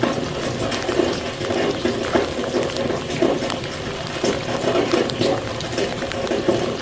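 Steady rain falling, with many close drops splashing at irregular moments.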